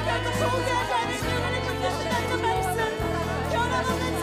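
A vocal group singing a worship song in harmony over a band accompaniment, with held bass notes that change every second or so.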